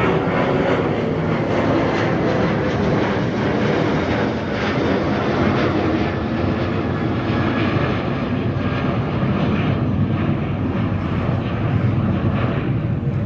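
Indian Railways WAP-4 electric locomotive approaching at the head of an express train, its cooling blowers and wheels on the rails making a steady roar.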